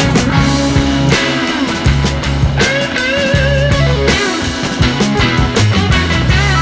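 Background music: an upbeat rock track with electric guitar, a steady drum beat and bass.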